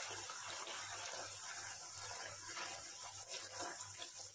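Bhatura dough deep-frying in hot oil in a kadai: a faint, steady sizzle of bubbling oil.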